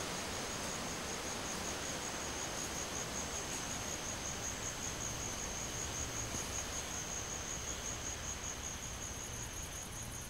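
An insect, cricket or katydid type, trilling one continuous high note in fast even pulses over the steady hiss of jungle ambience at night.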